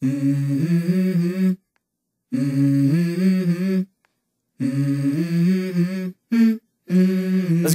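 Background music: a wordless vocal line sung in four short phrases, each cut off by a brief silence.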